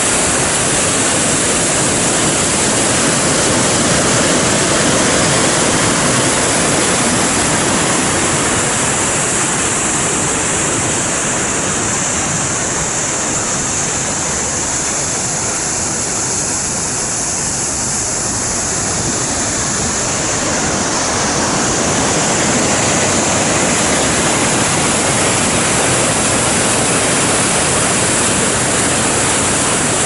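McNallie Creek Falls, a waterfall plunging through a rock gorge into a pool below, making a steady, loud rush of water that dips slightly in level midway.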